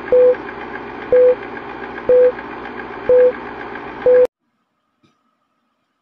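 Film-leader countdown sound effect: five short beeps, one a second, each led by a click, over a steady noise bed. It all cuts off abruptly about four seconds in.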